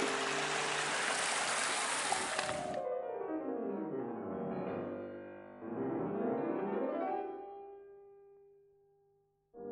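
Background piano music. For the first three seconds it lies under a steady rushing noise that cuts off suddenly; after that the music plays alone with sweeping glides and fades out.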